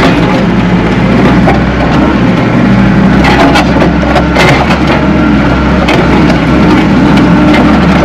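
Tracked skid steer's engine running loud, heard from the doorless cab as the machine moves forward with its bucket tilted down and digging into the dirt. Crunching and crackling from the bucket cutting the soil come through over the engine, more of them from about three seconds in.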